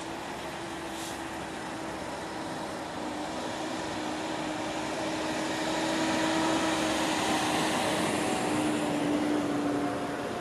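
Diesel semi-trucks hauling NASCAR race-team trailers driving past one after another, a steady engine drone with tyre and road noise. It grows louder about six seconds in as one truck passes close.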